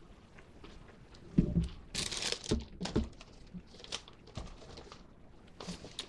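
Paper takeout bag rustling and crinkling as it is handled and searched, in irregular bursts, with a few low thumps in the first half.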